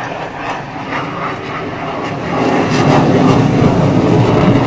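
Jet aircraft flying over, its engine noise growing louder about two seconds in and staying loud.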